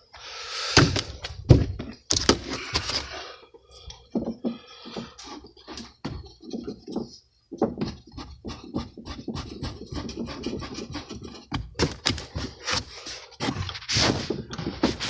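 Hand work on a car's rear strut mount as its bolts are put in: irregular metal clinks, knocks and scraping, with runs of quick clicks.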